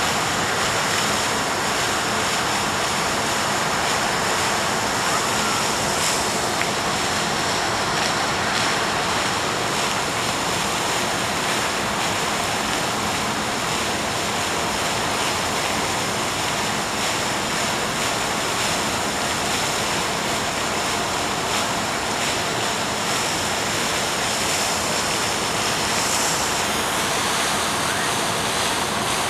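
Steady, even rushing noise of the outdoor waterfront ambience, with no distinct events.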